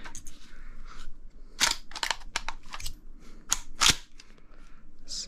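Airsoft shotgun being handled: a handful of sharp plastic-and-metal clicks and knocks, the loudest about four seconds in.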